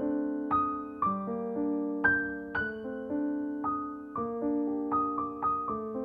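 Background piano music: single notes struck about twice a second, each ringing and fading.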